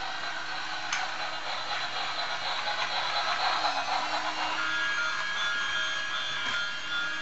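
Battery-powered bump-and-go toy steam locomotive driving across a hard floor, its small motor whirring under its built-in electronic train sound effects. Steadier high tones join in about halfway through.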